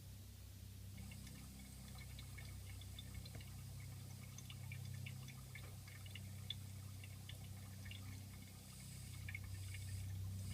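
Smoke machine running for an intake vacuum-leak test: a low steady hum, with fine crackling ticks from about a second in.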